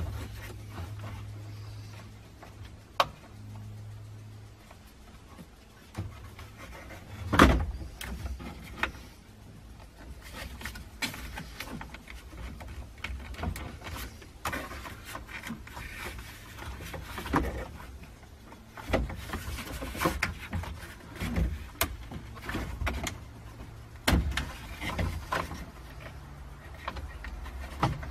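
Plastic dashboard trim of a 1989–95 Toyota truck being worked loose by hand: scattered clicks, knocks and rubbing of plastic, with one louder knock about seven seconds in. A low hum is heard in the first few seconds.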